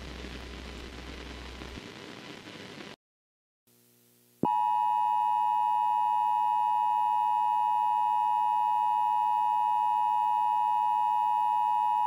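Emergency Alert System attention tone: a loud, steady electronic tone that starts about four seconds in and holds unchanged for about eight seconds. Before it there is a faint steady hiss that cuts off about three seconds in, followed by a short silence.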